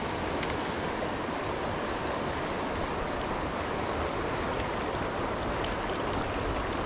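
Provo River rushing over a shallow rocky riffle: a steady, even rush of flowing water.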